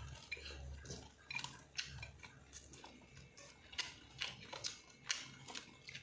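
A person eating with his fingers from a ceramic bowl: irregular soft wet clicks and smacks of chewing and of fingers working the food, over a faint low hum.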